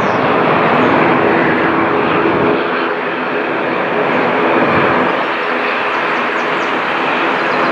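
Loud steady rushing noise of a large vehicle, with a steady hum underneath.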